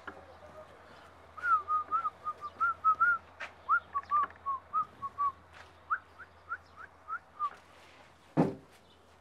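A person whistling a quick run of about twenty short notes, the last few sliding upward. A single sharp thump follows near the end.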